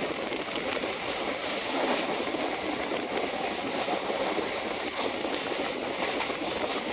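Passenger train running along the track, heard from an open carriage window: a steady rolling rush of wheels on the rails with occasional faint clicks.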